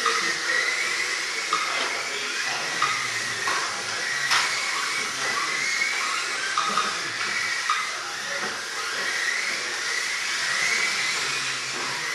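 1/28-scale electric RC cars running on a carpet track: the small electric motors whine over a steady hiss, their pitch rising and falling as the cars speed up and slow for the corners. A few sharp knocks, the loudest about four seconds in.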